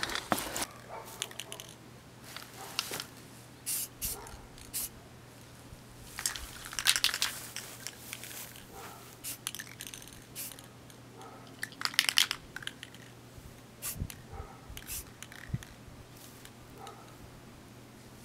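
Scattered light clicks, clinks and rustles of spray-paint cans, caps and Play-Doh tubs being picked up and handled on grass and cardboard, with small clusters of rustling about 7 and 12 seconds in.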